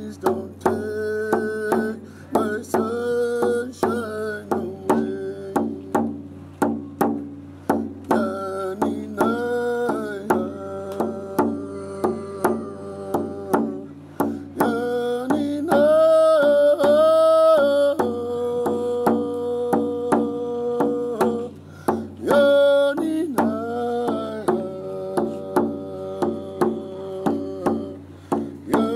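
Hand-held frame drum struck with a beater in a steady beat, while a man sings a held, wavering melody with no recognisable words.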